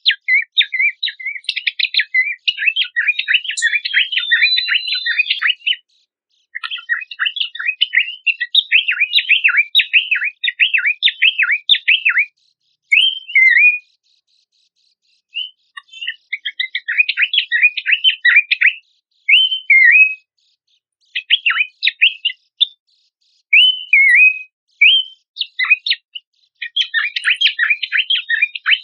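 Recorded song of a pelanduk semak (Horsfield's babbler): long bursts of fast, chattering, twittering notes broken by short pauses, with some single slurred whistles between the bursts near the end.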